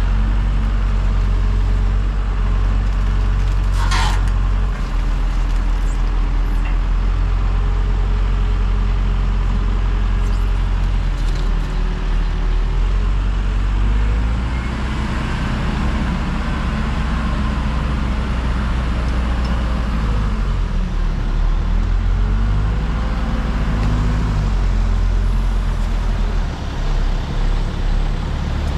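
Diesel engine of a JLG 10/55 telescopic handler running under hydraulic load as it lifts logs off a log truck, its engine speed rising and falling as the boom works. A short, sharp noise comes about four seconds in.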